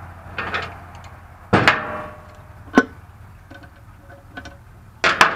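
About half a dozen sharp metallic clinks and taps, a few ringing briefly, from a hand tool on the bolts of a motorcycle's chrome primary cover and from loose bolts being set on the steel lift.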